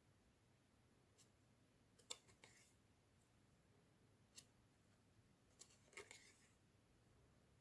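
Near silence broken by a few faint clicks and rustles of small paper items being handled, about two seconds in, again near four and a half seconds, and a short cluster around six seconds.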